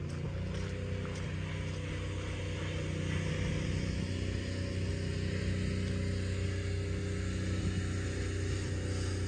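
GMC Topkick pumper fire truck's engine idling steadily, a low, even running tone.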